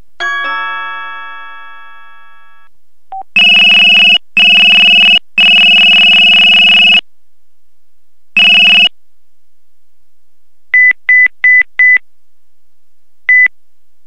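LG Voyager VX10000 phone's built-in tones, played straight from the phone: a chime that fades away, then loud buzzy electronic beeps of differing lengths, then four quick high beeps in a row and one more near the end.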